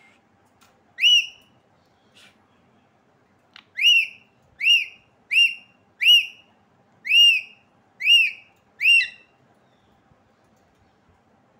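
Male rose-ringed parakeet (Indian ringneck) whistling: a short rising-and-falling whistle about a second in, then seven more in quick, even succession.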